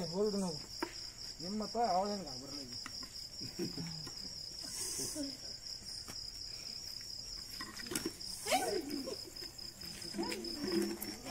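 Insects calling with a steady, evenly pulsing high trill like crickets, joined by a few short bursts of people's voices, the loudest a little over two-thirds of the way through.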